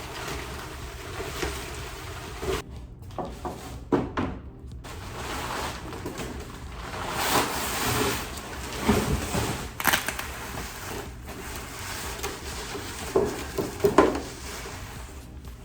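Irregular thumps and knocks with scraping and rustling of packaging as large body-kit panels are pulled out of their box. The sound breaks off briefly twice, early on.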